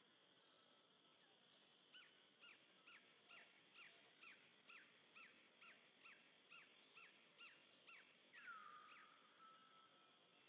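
Faint animal calls: a fast run of short, falling chirps, about three a second, ending in one longer note that slides down and holds.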